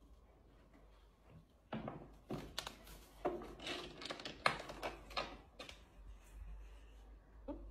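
Scuffling with a run of soft thumps and flaps as a cockatoo pokes into a carpeted cat-tree house and beats its wings at the cat inside. The bumps start about two seconds in and die away near the end.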